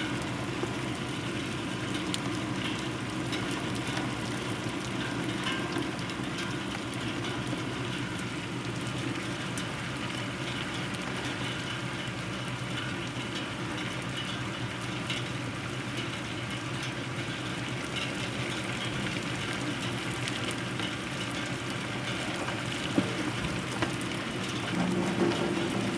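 Hard rain falling steadily during a thunderstorm: a continuous hiss of rain with many small drop ticks, and one louder tap near the end.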